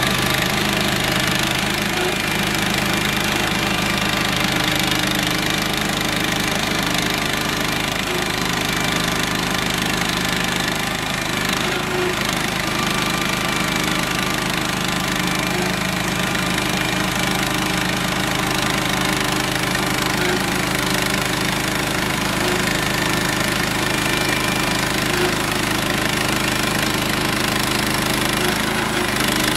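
Engine of a small Central Machinery bandsaw mill running steadily while its blade saws pine boards.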